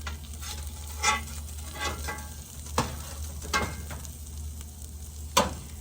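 Food sizzling in a pan while it is stirred, with about five short sharp scrapes or clinks of the utensil against the pan, the loudest near the end.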